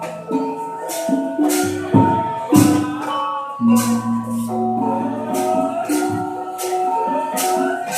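Gamelan-style music accompanying a Cirebon dance: sustained metallic pitched notes moving between tones, with sharp jangling percussion strokes about twice a second.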